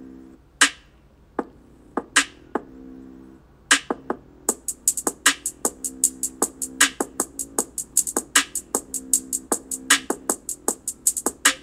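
Background music with an electronic beat: sharp drum-machine hits over a sustained low chord, with quick hi-hat ticks coming in about four and a half seconds in.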